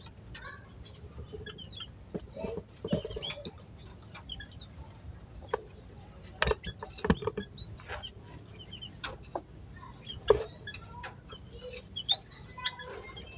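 Aviary birds calling: many short, scattered chirps, with some lower clucking calls about three seconds in. Several sharp knocks cut through, the loudest about six and a half, seven and ten seconds in.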